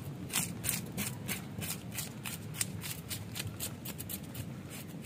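A knife scraping the thick scales off the side of a whole mala-bangus fish in quick repeated strokes, about four to five a second.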